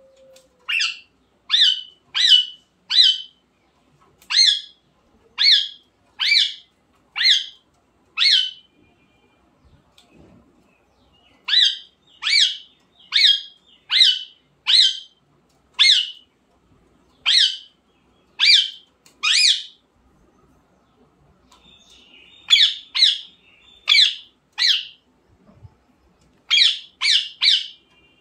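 Rose-ringed parakeet giving loud, sharp squawks, about one a second, in runs of three to six calls with short pauses between runs.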